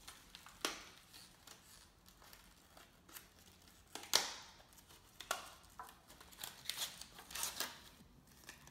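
A boxed fidget spinner and its plastic packaging being handled: scattered short clicks and crinkles, the sharpest about four seconds in.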